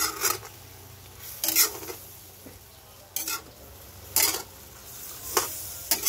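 Utensil stirring and scraping through chunks of pork hock, potatoes and saba bananas in a stainless steel pan, about six strokes spaced roughly a second apart. Underneath is a faint steady sizzle and a low hum.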